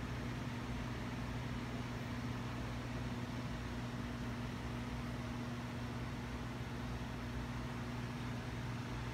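Steady electrical machine hum with fan-like hiss: a low tone and its octave held evenly, with no change in level.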